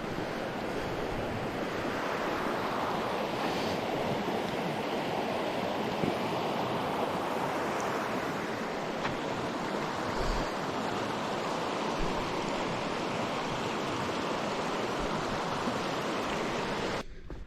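Steady rush of flowing creek water, even and unbroken, cutting off suddenly near the end.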